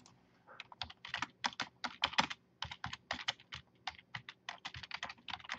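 Typing on a computer keyboard: quick, irregular runs of keystroke clicks, starting about half a second in.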